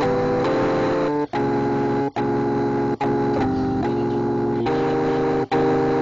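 Organ-like keyboard music: sustained chords held without fading, changing every second or so, with a few short sharp breaks between chords.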